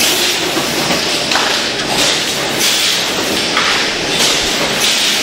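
Automatic pouch packaging line running: steady machine noise with short bursts of hiss repeating every second or so.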